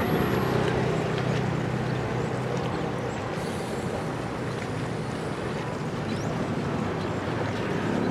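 Steady outdoor wind and water noise with wind buffeting the microphone, and a low hum in the first second or so that fades out.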